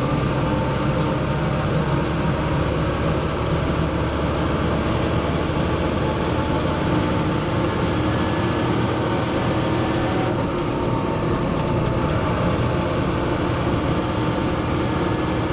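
Fendt Favorit 822 tractor's turbodiesel engine running steadily, with a thin high turbo whistle over it. The whistle falls away about ten seconds in and rises back a few seconds later.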